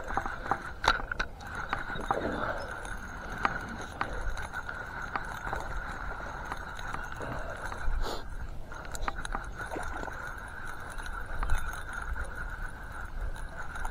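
Fishing reel being cranked to retrieve a topwater lure, with scattered light clicks over a steady high buzz that breaks off briefly about eight seconds in.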